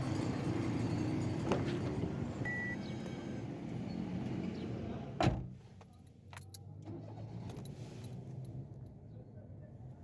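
Toyota Passo engine starting and running, with a sharp knock about five seconds in, after which it settles to a quieter, steady idle. Its cylinder 2 misfire has just been fixed with a new spark plug.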